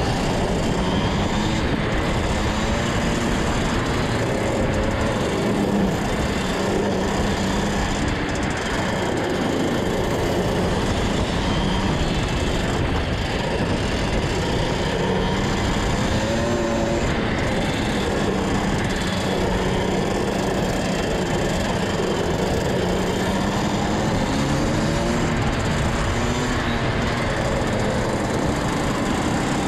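Rotax Max DD2 125 cc two-stroke kart engine running on track, heard onboard, its note wavering up and down at part throttle over a steady noisy rumble.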